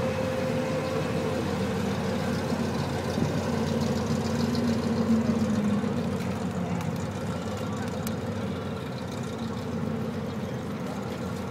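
V8 engine of a modified 1960s Ford Falcon running as the car rolls slowly past, swelling to its loudest about five seconds in and then fading as it moves away.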